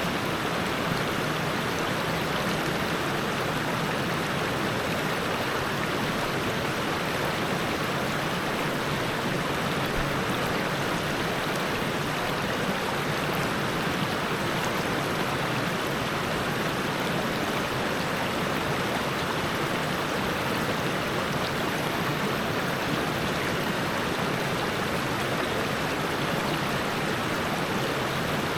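Steady rush of whitewater: the Suwannee River running over the limestone shoals, with no change throughout.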